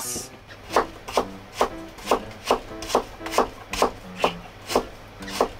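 Kitchen knife slicing carrot into thin strips on a hinoki wood cutting board, striking the board in a steady rhythm of about two chops a second, starting about three-quarters of a second in.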